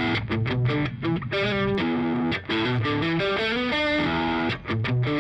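Background music: a distorted electric guitar playing a riff.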